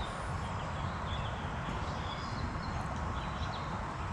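Steady outdoor background noise with a low rumble, and a few faint, short bird chirps scattered through it.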